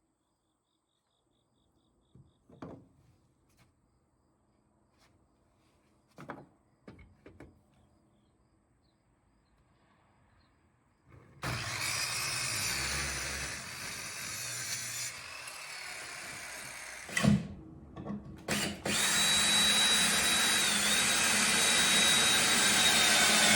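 A handheld electric power tool runs in two long stretches, each several seconds, with a steady high motor whine on the second. There is a short break between them with a couple of sharp knocks. A few light knocks and taps come before it.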